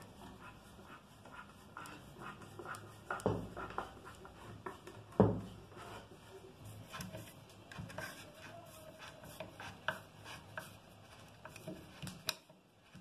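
Wood screws being turned by hand with a screwdriver into pre-drilled pilot holes in plywood: faint, irregular scraping and clicking as the screws bite, with two louder knocks, about three and five seconds in.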